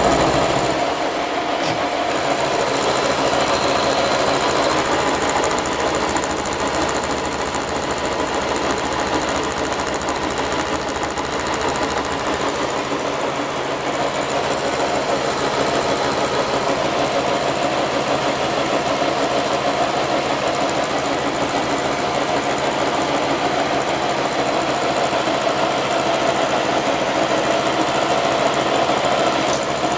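Milling machine face-milling a steel block, the cutter running steadily through a heavy cut of about 4 mm at 800 rpm.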